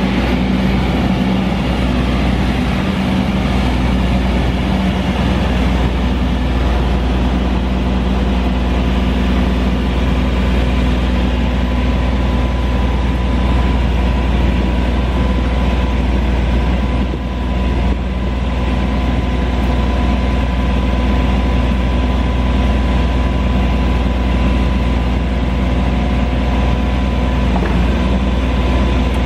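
Caterpillar C9 diesel engine of an Atlas Copco ROC F9CR crawler drill rig running steadily, with a thin steady whine over the deep engine sound.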